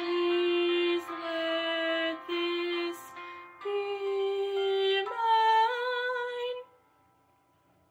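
Young female voice singing the final phrase of a slow musical-theatre ballad over a backing track. It ends on a long held note with vibrato that stops about six and a half seconds in.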